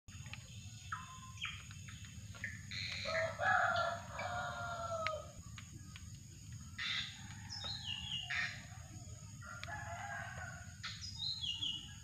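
Birds calling: a rooster crows once about three seconds in, the loudest sound, among short whistled calls from other birds that step down in pitch, several times over.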